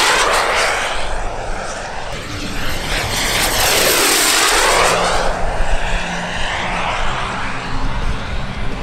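Large-scale RC model glider making fast low passes, a rushing whoosh of air over the airframe that swells and sweeps in pitch as it passes close, once just after the start and again around four seconds in.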